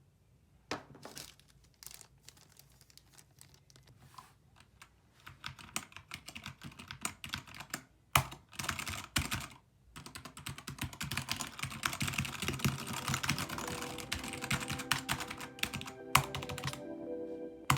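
Typing on a Keychron K2 mechanical keyboard with Gateron Brown switches. A few scattered keystrokes at first build into fast, continuous clacking. Music comes in near the end.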